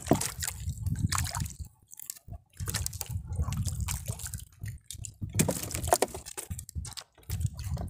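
Water sloshing and splashing beside a small outrigger boat, with scattered short knocks and splashes as a fish is hauled up on a handline and swung over the water, dripping.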